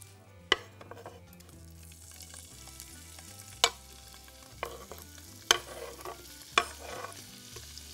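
Chunks of spicy Egyptian beef sausage dropping into a frying pan of hot vegetable oil and sizzling, the sizzle growing from about two seconds in as more pieces land. A few sharp knocks are heard as the pieces are pushed off a wooden cutting board.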